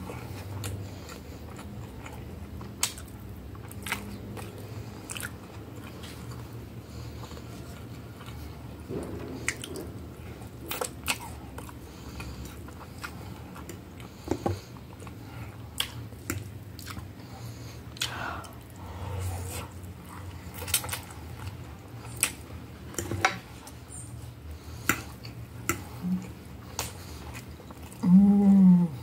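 Close-up chewing and mouth sounds of someone eating spaghetti with beef, with scattered sharp clicks of a metal fork against the plate. Near the end a loud slurp as a forkful of spaghetti is sucked in.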